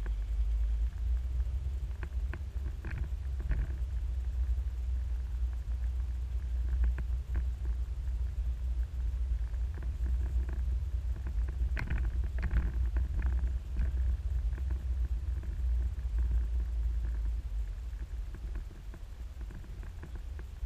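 Steady low rumble of a Peugeot car's engine and tyres heard from inside the cabin, with scattered light knocks and rattles, a cluster of them about twelve seconds in.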